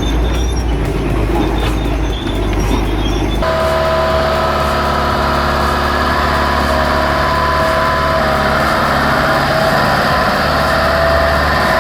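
Heavy diesel machinery running under load: a rough rumble that about three and a half seconds in switches abruptly to a steadier engine drone with a held whine.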